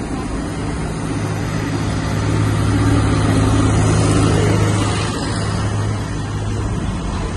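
Street traffic and the running of a Hong Kong double-decker tram, heard from its upper deck as a steady low hum. The hum swells for a couple of seconds in the middle as a truck passes close alongside.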